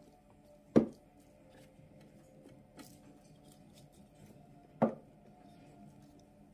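Wooden spoon working a mass of boiled soybeans in a cloth-lined fermenter, giving two sharp wooden knocks about four seconds apart and a few faint ticks over a faint steady hum.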